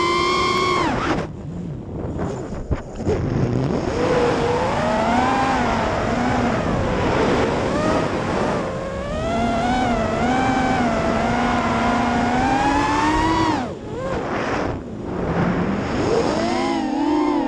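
FPV quadcopter's brushless motors and propellers whining, the pitch rising and falling with the throttle. The whine briefly falls away twice, about a second in and again near the end, then climbs back. Heard from the camera on the drone itself.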